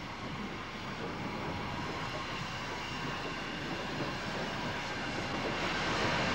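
Steam train headed by an LNWR coal tank engine approaching. Its running noise is a steady rush with no clear exhaust beat, slowly growing louder.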